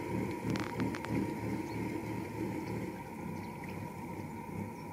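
A steady mechanical hum with a faint high whine over it, and a few light clicks about half a second to a second in.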